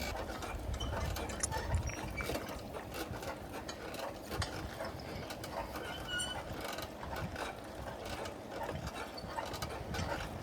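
Many small irregular clicks and light clattering, like objects being handled.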